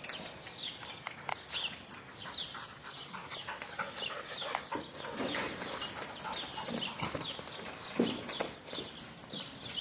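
A small bird chirping over and over, short falling chirps a little more than once a second, with scattered thuds and scuffs of a mare's and foal's hooves on arena sand; the loudest thud comes about eight seconds in.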